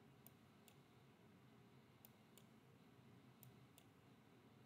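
Faint computer mouse clicks over near-silent room tone: three pairs of quick clicks, about a second and a half between pairs.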